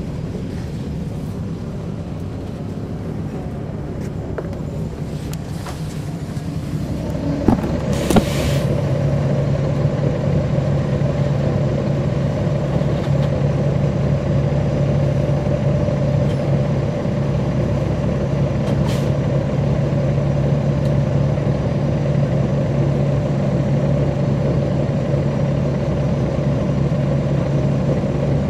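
Caterpillar C13 ACERT diesel engine of a NABI 40-foot transit bus, heard from on board while it runs. About a quarter of the way in the engine grows louder, with two sharp clicks, then holds a steady pitch for the rest of the time.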